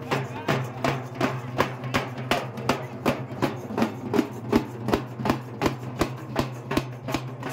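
Large double-headed barrel drums beaten with sticks in a steady, even rhythm of about three strikes a second, over a low steady hum.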